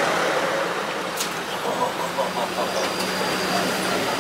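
A motor vehicle engine running with a steady low hum over general street noise. There is a single click about a second in.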